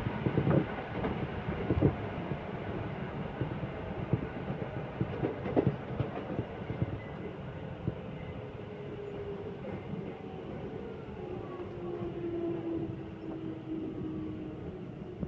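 Train running, heard from inside the passenger carriage: a steady rumble with sharp wheel knocks, most of them in the first half. Later a faint tone slowly falls in pitch.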